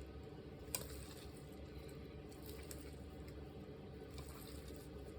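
Hands kneading and stretching sticky clear slime thickened with instant snow: soft squishing with small crackles, and one sharper click about three quarters of a second in.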